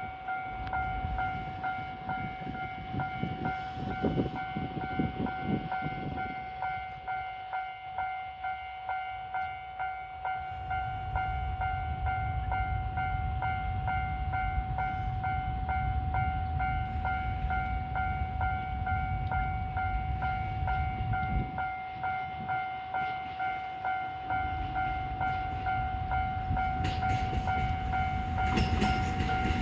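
Railway level-crossing warning alarm ringing "kan-kan" in a steady, regular beat at a barrier-less type-3 crossing, over a low rumble. Near the end a train approaches and grows louder.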